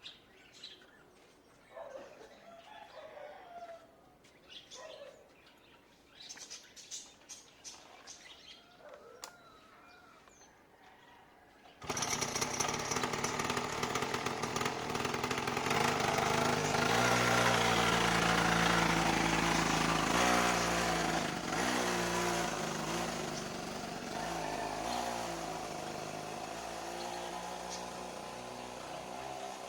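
A small kids' ATV engine starts about twelve seconds in and runs through to the end, its pitch rising and falling as it is ridden, loudest a few seconds after it starts. Before that there are only faint bird and chicken calls.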